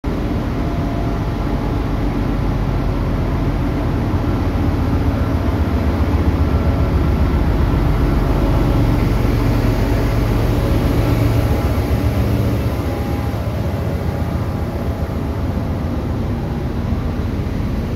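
Trenitalia D445 diesel-electric locomotive's engine running as it draws an Intercity train slowly in along the platform. It grows louder as the locomotive passes, about halfway through, then eases off as the coaches roll by.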